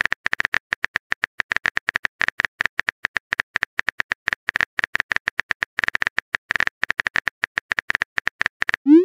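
Phone keyboard typing sound effect: rapid, uneven clicks, about ten a second, each with a short high tick. Near the end the clicks stop and a short rising tone sounds, the cue of a text message being sent.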